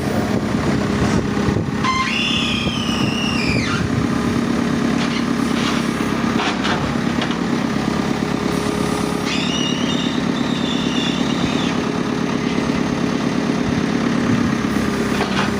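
Backhoe loader's diesel engine running steadily, with two high-pitched squeals over it, one about two seconds in and one near the middle, each lasting two to three seconds.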